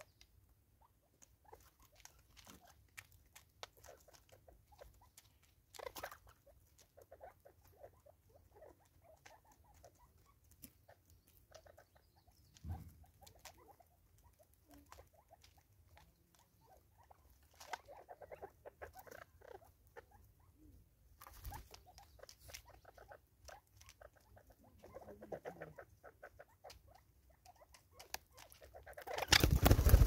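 Spurfowl pecking at seed in a plastic bottle feeder: irregular sharp beak taps and scuffling clicks. Near the end comes a loud burst of wing flapping as a bird takes off close by.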